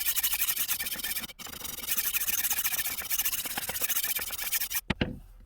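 The diamond grinding disc of a HORL 2 rolling knife sharpener is rolled back and forth along a stainless steel knife edge, making a steady rasping grind. It breaks off briefly about a second in. It stops near the end with a single knock.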